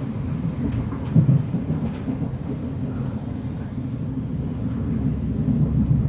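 Running rumble of a Class 707 electric train on the move, heard from inside the carriage, with one brief louder thump about a second in.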